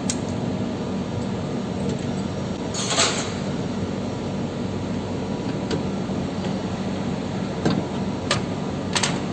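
Steady hum of running machinery, with a short burst of hiss about three seconds in and three sharp clicks near the end.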